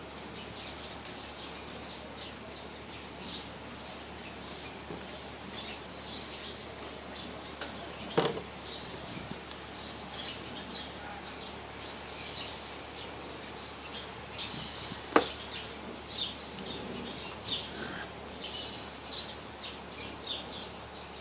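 Small birds chirping again and again in the background, over a low steady hiss. Two sharp clicks stand out, about eight and fifteen seconds in.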